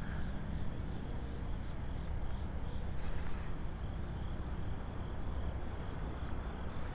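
Steady high-pitched chirring of insects, over a low rumble.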